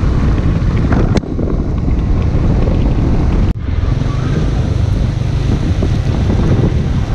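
Wind rushing over the microphone of a handlebar-mounted camera on a Yamaha Nmax scooter riding on a wet road in the rain, a steady deep rumble. The sound briefly cuts out about three and a half seconds in.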